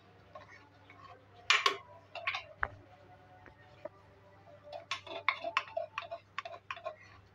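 Scattered light clicks and taps at a cooking pot while a spoonful of garam masala is added to the curry, the sharpest about one and a half seconds in and a loose run of them near the end, over a faint steady low hum.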